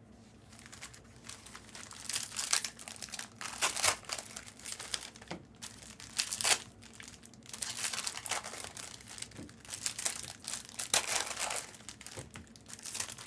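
Trading-card pack wrappers crinkling and tearing in irregular bursts as packs are opened by hand.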